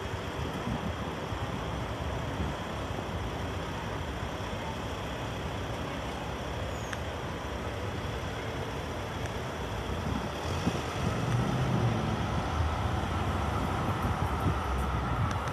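Road traffic: car engines idling and moving slowly in a queue alongside a tram, a steady rumble. It grows louder about ten seconds in, when a steady high whine joins it.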